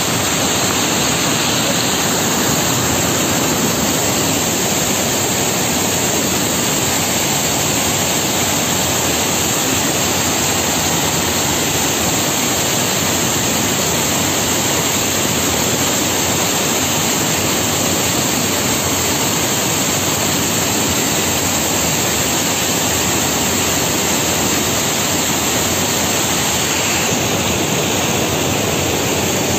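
Overflowing spring water rushing steadily over rocks, a loud, even rush with no breaks, the spring in spate after heavy rain.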